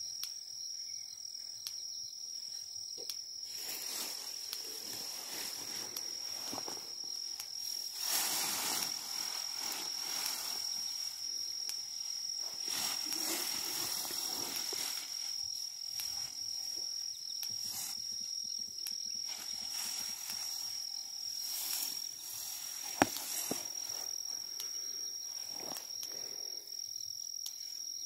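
Insects trilling steadily on one high note, with the rustle of long grass as an elephant calf rolls and shifts in it close by. A single sharp click about 23 seconds in.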